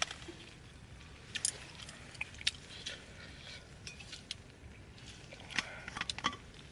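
A few scattered, sharp clicks and light knocks at irregular intervals, with a small cluster near the end.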